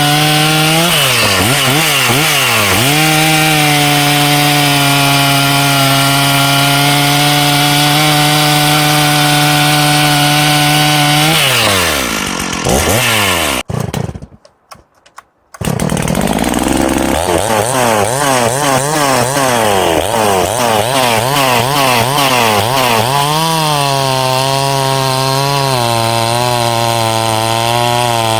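Two-stroke chainsaw cutting through a ponderosa pine log: after a few quick revs it runs at a steady full-throttle pitch for about ten seconds, then winds down. After a sudden break of about two seconds, a chainsaw runs again with its pitch rising and falling rapidly as it works through the wood.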